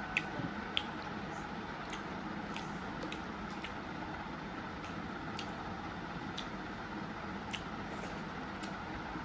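Eating sounds: fingers squishing rice on a metal plate, with scattered short wet clicks and smacks every half second or so, over a steady background hum.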